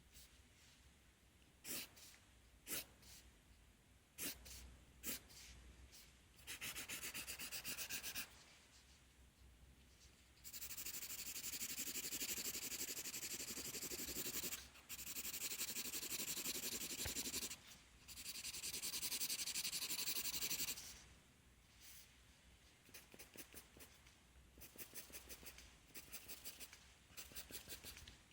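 Pencil writing on paper: a few sharp taps and short strokes, then long stretches of fast back-and-forth scratching, each lasting a few seconds, and near the end a run of short, separate strokes.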